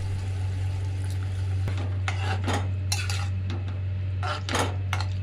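A spoon stirring in a cooking pan, clinking and scraping against its sides several times, the loudest knock near the end, over a steady low hum.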